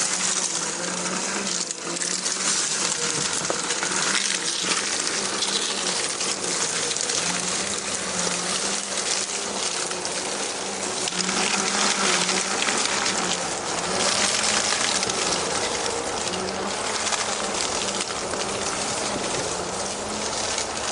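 Traxxas TRX-4 RC crawler's electric motor and geared drivetrain whining steadily at low speed, the pitch wavering slightly with load, under a loud continuous rushing hiss.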